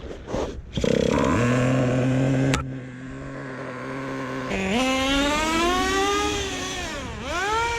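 Nitro two-stroke glow engine of a Traxxas T-Maxx RC truck running hard. It holds a steady high rev and drops back with a sharp click after a couple of seconds, then revs up in a long climb, dips briefly near the end and climbs again.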